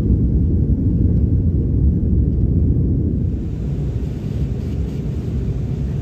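Jet airliner cabin noise on the takeoff roll: a loud, steady, low rumble of the engines, with a hiss joining about three seconds in.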